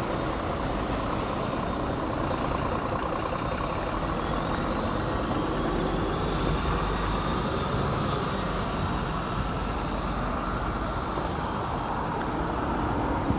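Steady street traffic noise: vehicle engines running, with one engine's pitch rising slowly partway through.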